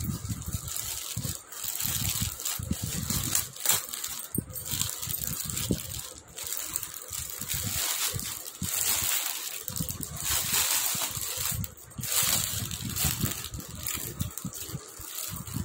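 Plastic courier mailer bag rustling and crinkling in the hands as it is torn open and a clear-plastic-wrapped package is pulled out, with many short crackles throughout.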